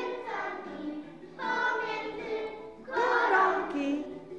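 A group of young children singing together, in three short phrases.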